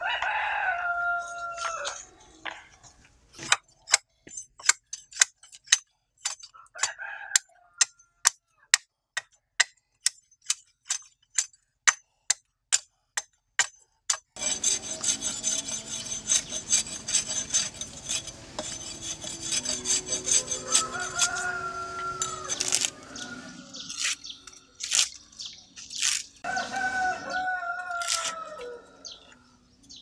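A rooster crows at the start and again near the end. In between, a machete chops at a bamboo pole in a steady run of sharp strikes, about two a second, followed by a noisier stretch with scattered knocks.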